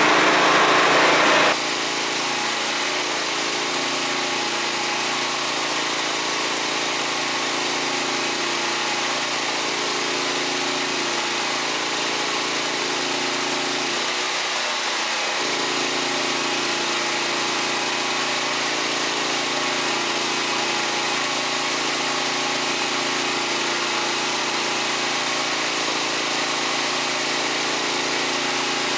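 TIG welding arc from an Everlast PowerARC 160STH inverter welder running on power from a Predator 8750 inverter generator: a steady hiss over a steady hum. It opens with a louder burst of noise lasting about a second and a half.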